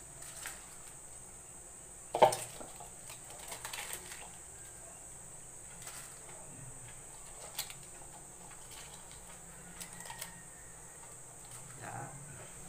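Cabbage leaves being dropped and pressed by hand into an aluminium pot: scattered light rustles and knocks, the sharpest about two seconds in, over a faint steady hiss.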